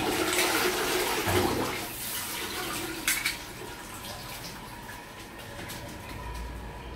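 A toilet being flushed: water rushes into the bowl, loudest for the first couple of seconds and then dying away, with a sharp click about three seconds in.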